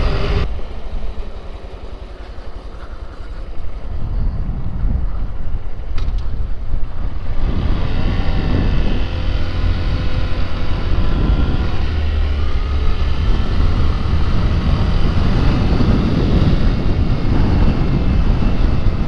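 Wind rushing over the microphone while riding a Honda Grom, with its small 125 cc single-cylinder engine faintly audible underneath, its pitch rising and falling with the throttle. The wind drops off briefly about a second in, then builds again and stays loud.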